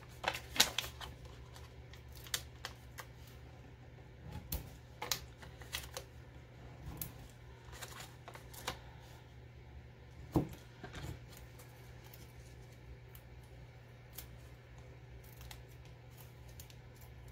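Stampin' Dimensionals foam adhesive squares being peeled off their paper backing sheet and pressed onto a cardstock die-cut: scattered small clicks and paper crackles, the loudest about half a second in and again near the middle, over a low steady hum.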